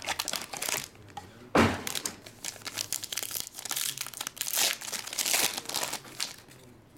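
Foil wrapper of a Panini Contenders Optic football card pack crinkling as it is handled and torn open, loudest in a sudden crackle about one and a half seconds in. The crinkling fades near the end as the cards come out.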